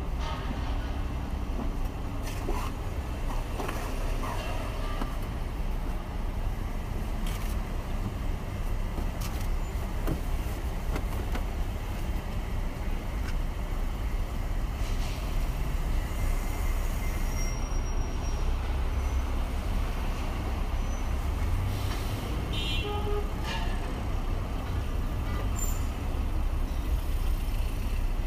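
City road traffic, with a steady low rumble of car engines and tyres from a slow-moving queue. A short horn toot sounds about three-quarters of the way through.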